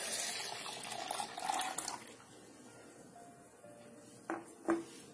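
Milk pouring into a stainless-steel mixer-grinder jar, splashing for about two seconds and then trailing off. Two short knocks near the end.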